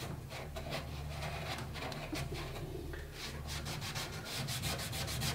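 Hand scrubbing the inside of a laser cutter's metal frame, a quick run of even rubbing strokes over a low steady hum.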